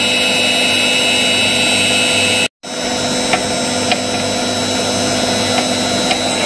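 Electric end mill sharpener running, its motor and grinding wheel giving a steady hum and whine, with a few faint ticks as the end mill holder is fitted into the grinding port. The sound cuts out completely for a moment about two and a half seconds in.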